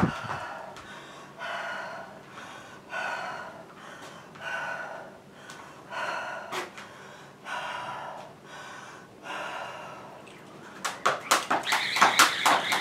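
Hard, heavy breathing after exertion, one breath about every second and a half. About eleven seconds in, a jump rope starts slapping the floor in quick succession, about five slaps a second, as double-unders begin.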